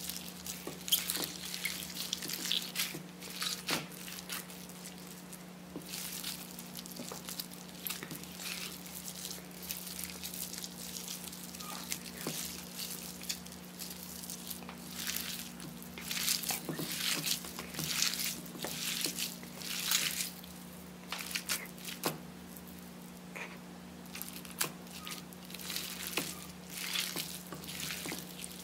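Clear slime mixed with Play-Doh and small foam beads being squeezed and kneaded by hand, giving irregular wet squelches and sticky, crackling pops.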